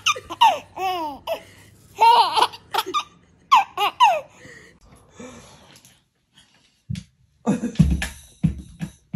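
A baby laughing in bursts of high, squealing giggles that fade out after about four seconds. Near the end come a few dull thumps.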